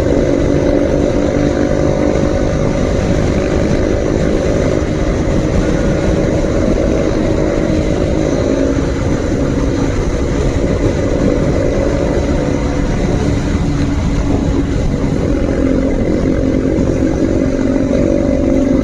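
Motorcycle engine running steadily at road speed with wind rushing over the microphone. Its pitch drops briefly about halfway through, then picks up again.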